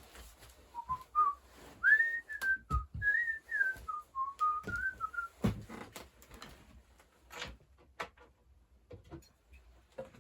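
A person whistling a short wandering tune for about four seconds, with scattered knocks and clicks of handling things in a small room around it.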